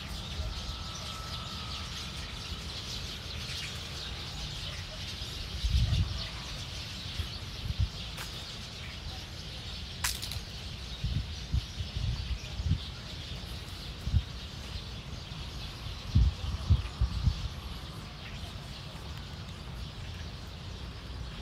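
Outdoor ambience with birds chirping over a steady hiss. Scattered low thumps come and go, mostly in the middle stretch, and there is a sharp click partway through.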